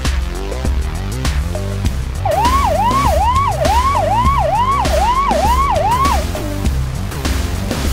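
Electronic background music with a steady beat; from about two seconds in, a siren sounds for about four seconds as a quick rising whoop repeated about twice a second.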